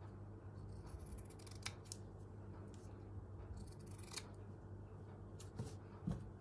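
Scissors cutting small pieces of fabric: a handful of short, quiet snips at irregular intervals, over a faint steady low hum.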